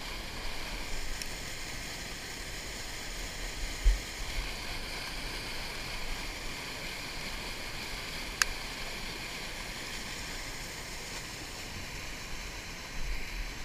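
Steady rushing of whitewater pouring through an artificial course's chute and standing wave. A low thump comes about four seconds in and a sharp click about eight seconds in.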